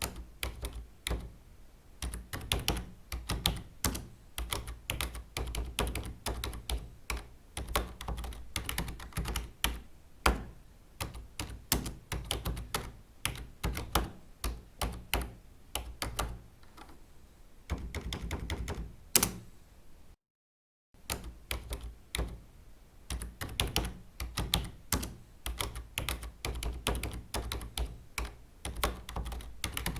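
Fast, irregular typing on a computer keyboard, with keys clicking in quick runs. About two-thirds of the way through it cuts out briefly, then picks up again.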